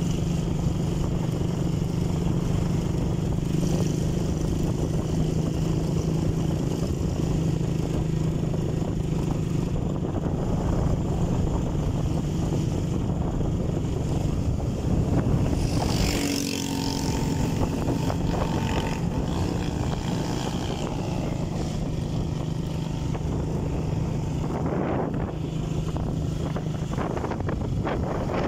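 Motorcycle engine running steadily while riding, with wind rushing over the microphone. About halfway the engine note drops away briefly under a rush of noise, then settles back into a steady run.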